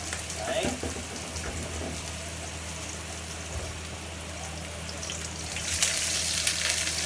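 Sliced ginger sizzling in hot oil in a wok. About two-thirds of the way in, a wooden spatula starts stirring and scraping through it and the sizzle gets louder.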